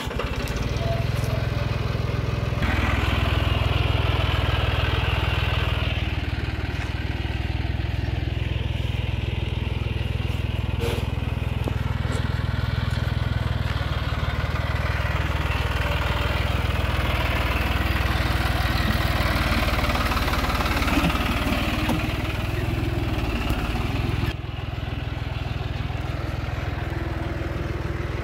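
John Deere 5055E tractor's turbocharged three-cylinder diesel engine running steadily under load while driving a Shaktiman Tusker rotary tiller. The level steps up about two and a half seconds in and drops a few seconds before the end.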